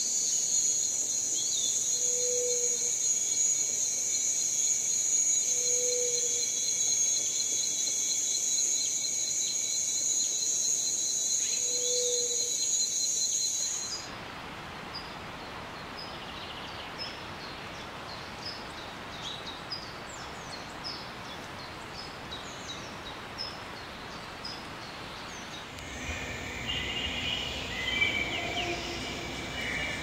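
Tropical forest ambience. First a steady, high insect drone with a fast pulsing trill, and three short low calls spaced a few seconds apart. About halfway through it switches abruptly to an even hiss with short high bird chirps, which grows louder with more chirping near the end.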